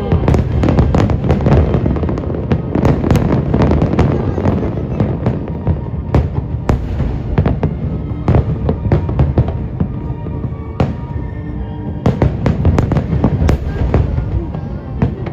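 Fireworks bursting in a dense, rapid barrage: many sharp bangs and crackles over a continuous low rumble, with a few brief lulls. Music plays along underneath.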